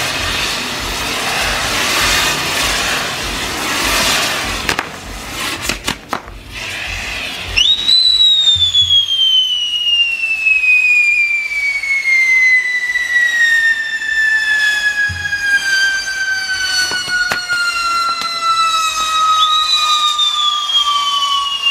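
Fireworks: first a steady hiss with a few sharp cracks, then about seven seconds in a loud shrill pyrotechnic whistle shoots up and slowly slides down in pitch for about fourteen seconds. A second whistle starts near the end.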